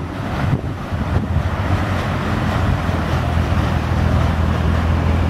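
Sternwheel paddle steamer passing: a steady low engine drone, which settles into an even hum about halfway through, over a rushing hiss of water churned by the stern paddle wheel.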